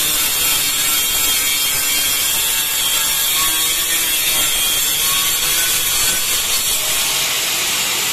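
Angle grinder with a diamond disc, riding a sliding rail jig, running steadily as it grinds a bevelled edge along a ceramic wall tile; an even, unbroken grinding noise.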